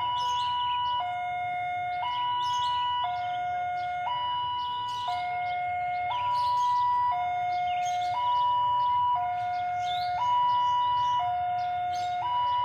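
Electronic level-crossing warning alarm sounding steadily as a train approaches, alternating between a high and a low tone about once a second. Short high chirps come and go above it.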